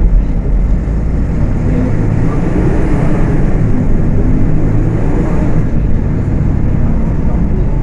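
Diesel engine of a Volksbus 18.280 OTS city bus running under way, with a steady low rumble. It swells and gets brighter for a few seconds in the middle, then settles back.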